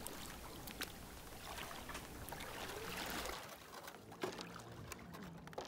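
Faint water sloshing and trickling as a plastic toy boat is dipped into shallow lake water to fill its pull-out pool, with a few light clicks.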